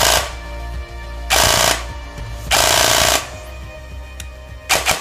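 Systema PTW airsoft rifle with a dual sector gear firing short full-auto bursts: a brief one right at the start, two longer ones about a second apart, and another brief one near the end. Steady background music plays underneath.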